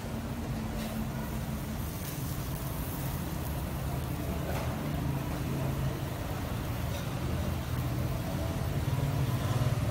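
Steady low engine-like hum over a constant background noise, with a couple of faint clicks.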